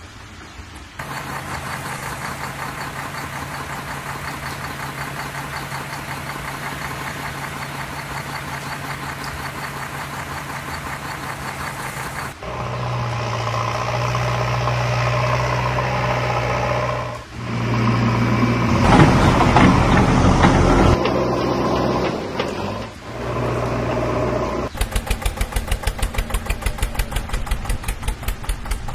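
Engine sound effects laid over toy construction play: a diesel machine running, its tone changing abruptly every few seconds, loudest about two-thirds of the way in, and ending in a fast, even chugging.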